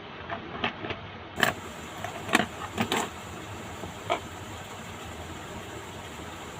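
Steady hiss from an amplifier speaker being powered up and tested, with a string of sharp clicks and pops in the first four seconds.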